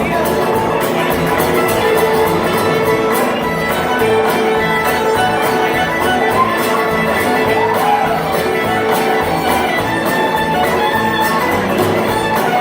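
Live band playing a song with a steady beat and sustained string-like melody lines.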